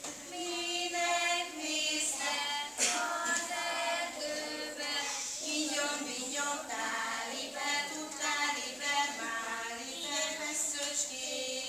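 A group of young children singing an action song together with a woman's voice, with one sharp knock about three seconds in.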